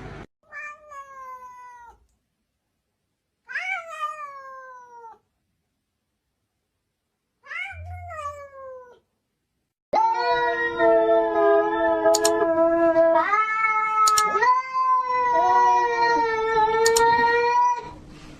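Cat meowing: three drawn-out meows, each falling in pitch, with silence between them. Then, from about ten seconds in, continuous loud yowling with overlapping calls.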